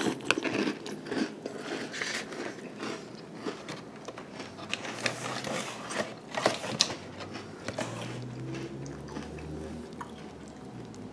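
Crunchy puffed corn cereal (Reese's Puffs Bunnies) being chewed: irregular crunches and crackles that thin out after about eight seconds.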